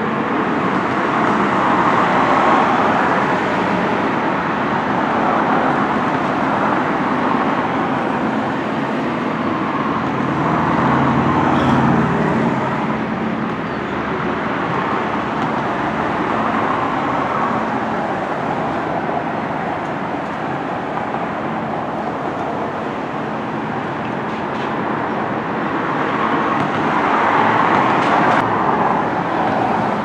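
Steady outdoor background noise, a continuous rushing haze that swells three times: once near the start, again with extra low rumble about halfway through, and again near the end.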